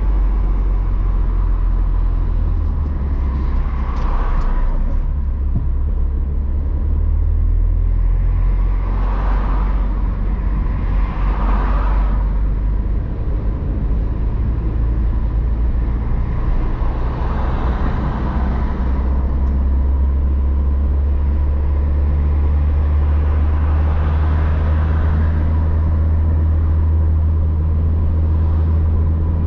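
Engine and road noise heard from inside a moving car's cabin: a steady low drone, with a broad rush of noise swelling and fading several times.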